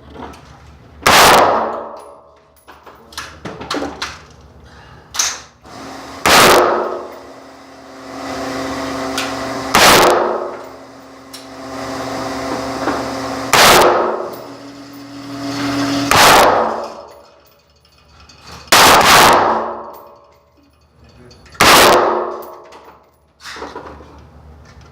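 AR-15 rifle fired in slow single shots, about seven a few seconds apart, each followed by about a second of echo.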